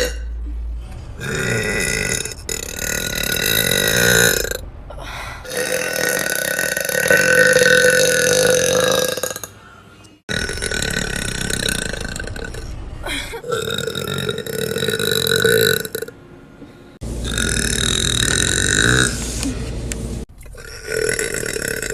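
A woman burping deeply: a string of long, drawn-out burps, each lasting about two to four seconds, with short breaks between them.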